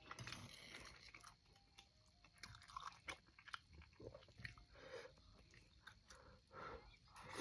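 Faint chewing and biting on food close to the microphone: irregular soft mouth clicks and smacks.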